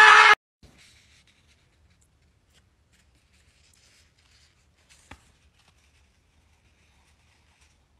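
A loud cry rising in pitch cuts off abruptly at the very start. Then near silence with faint rustling of paper manga pages being turned by hand, and one small click about five seconds in.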